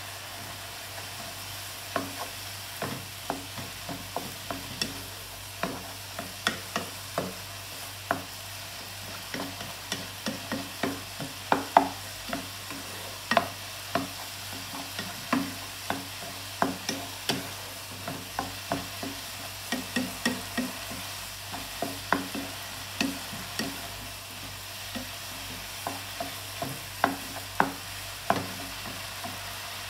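Wooden spatula stirring meat and onions in a frying pan over a gas flame, knocking against the pan irregularly, about once or twice a second, over a steady sizzle of frying.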